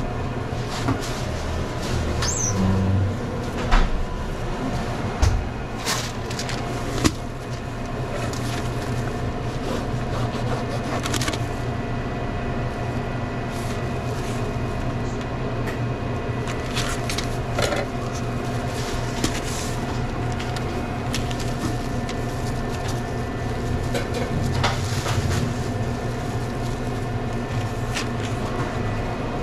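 Steady hum of a sandwich shop's equipment, with scattered clicks and knocks from food being handled and containers and lids being moved along the sandwich line.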